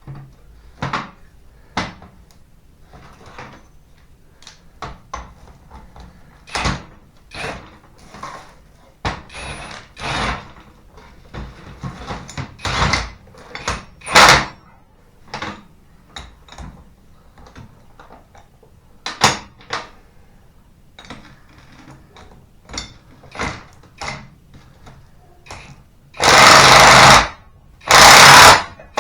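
Scattered metal clanks and knocks as tools and parts are handled, then near the end a Hercules 20V half-inch brushless impact wrench hammering in two bursts of about a second each, the loudest sound, as it works the nut on a large bolt.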